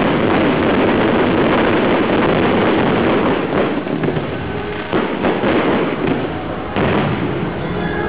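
Fireworks going off in quick succession: a dense, continuous crackle of many small pops, with a few louder bangs about three and a half, five and seven seconds in.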